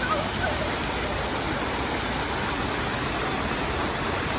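Steady rush of water from an artificial waterfall pouring into a pond.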